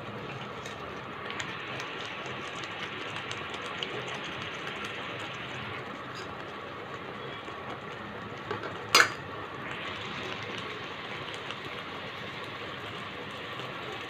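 Thick gongura and moong dal simmering in a pan, a steady hiss with many small pops. One sharp knock about nine seconds in.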